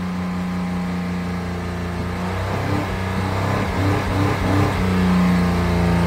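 2016 Honda Pilot's 3.5-litre V6 running at a steady, too-high idle just after start-up, its speed wavering slightly midway. This is the high-idle fault being diagnosed alongside code P2652 for the rocker arm oil pressure switch circuit.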